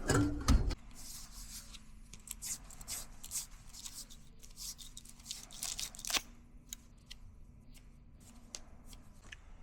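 Light scratching, rustling and small clicks from hands working with parts, over a faint steady low hum.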